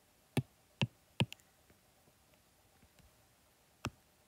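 Stylus tapping on a tablet's glass screen: short, sharp taps, three close together in the first second and a half and one more near the end.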